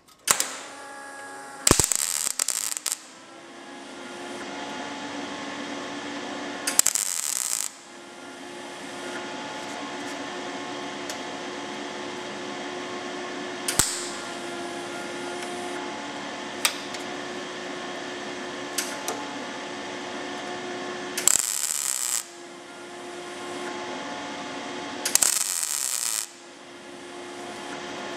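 Gas-shielded MIG welder tack-welding a butt joint in thin steel body panel: five or six short bursts of crackling arc, each about half a second to a second long, with a steady hum between them.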